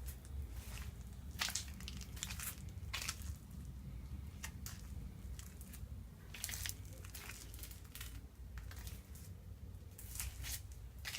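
Irregular rustling and scuffing noises, one every second or so, over a steady low hum.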